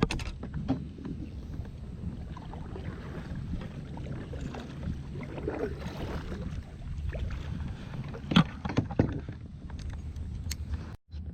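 Kayak moving on the water: paddle strokes and water sloshing against the hull under a steady low wind rumble on the microphone. Two sharp knocks come late on, and the sound cuts out briefly just before the end.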